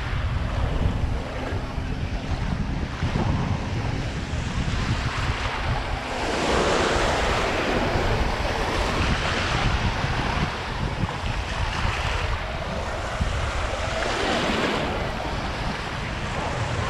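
Shallow sea surf washing and splashing, swelling in surges every few seconds, with wind rumbling on the microphone.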